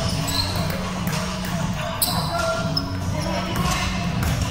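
Indoor basketball game on a hardwood gym floor: a ball bouncing, with a sharp impact about two seconds in, short high sneaker squeaks, and players' voices echoing in the hall over a steady low hum.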